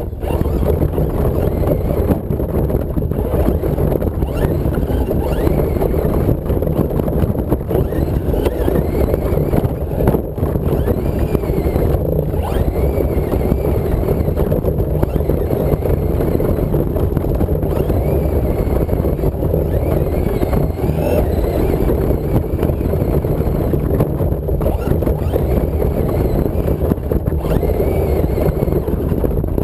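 Traxxas Slash RC truck driving over grass, heard from on board: a steady, loud rumble of the chassis and wind on the microphone, with a faint motor whine that rises and falls with speed.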